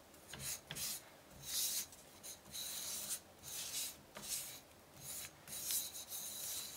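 Paper rubbed by hand, and near the end with a wooden stick, against an inked gelatin printing plate to burnish a monotype print. The sound is a string of short, soft swishing strokes, about one or two a second.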